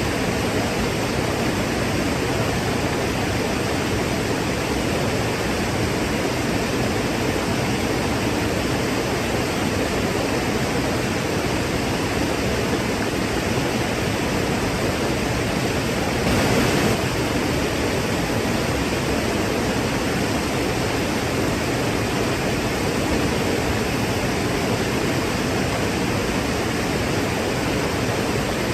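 Waterfall: a steady, unbroken rush of falling water, swelling briefly about sixteen seconds in.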